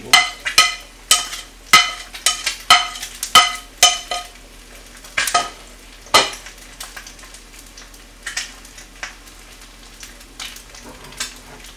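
A metal spoon clinks and scrapes against a ceramic plate as rice cakes are pushed off it into a pot, with a quick run of ringing clinks. A couple of louder knocks follow, then quieter scraping as the spoon stirs the stew in the earthenware pot.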